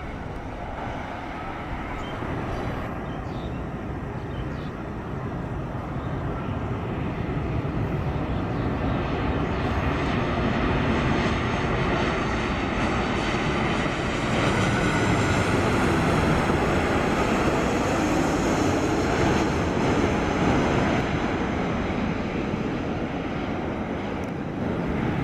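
Airliner's engines running as it passes close by: a steady roar that grows louder through the first half, peaks with a faint high whine in the second half, then eases off near the end.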